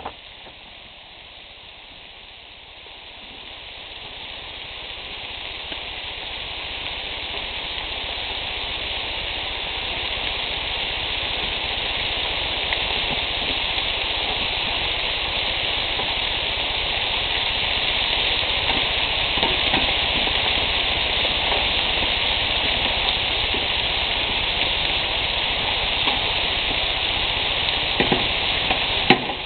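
Bacon-wrapped quail breasts sizzling on a grill: a steady frying hiss that grows louder over the first ten seconds or so, then holds. A few light clicks come near the end.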